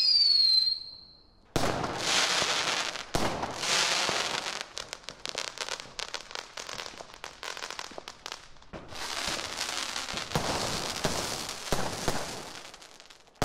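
Fireworks: a rocket's falling whistle, then a bang about one and a half seconds in, followed by crackling and several more bursts that fade away near the end.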